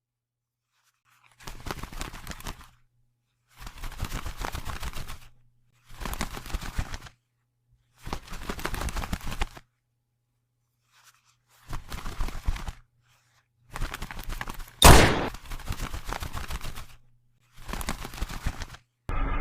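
Stock cartoon sound effects: a run of short bursts of fast rattling, rustling noise, each about a second long, with silent gaps between them. About fifteen seconds in comes one loud, sharp bang.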